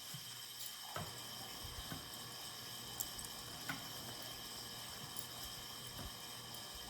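Faint handling noises: a few light taps and crinkles as a sticky adhesive covering is pressed and folded onto a light switch plate, over a steady low background hum.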